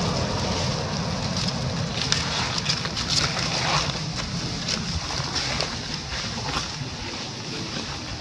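Dry leaves crackling and rustling under macaques walking over leaf litter, in short scattered crackles over a steady outdoor hiss. A low rumble fades away in the first second or two.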